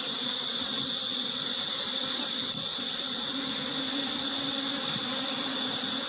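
Steady hum of honeybees over an open hive, with a constant high-pitched whine above it and a few faint clicks in the middle.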